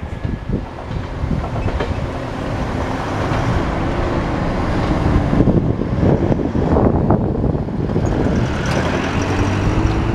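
Train passing close by: steady running noise with wheels clicking over the rail joints, growing slightly louder, and a faint rising engine note near the end.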